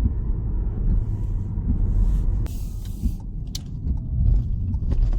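Low in-cabin rumble of a Toyota car slowing to pull over, with a short hiss about halfway and a few sharp clicks in the second half.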